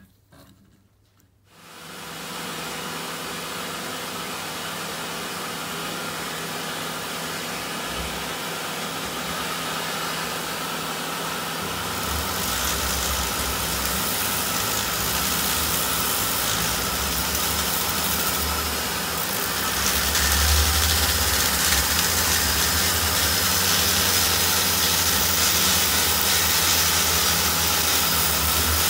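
Flexible-shaft rotary tool spinning an 80-grit abrasive-tape bob inside a cast-iron cylinder head port, polishing it smooth. It starts up about a second and a half in and runs steadily, growing louder about halfway through and again later as the bob is worked into the port.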